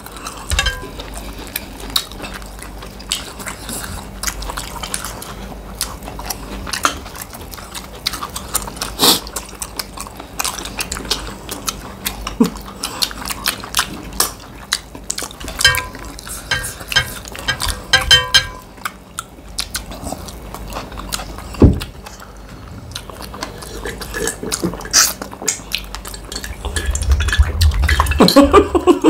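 Irregular clinks and scrapes of utensils against a shared plate as two people eat fast, with a louder low rumble near the end.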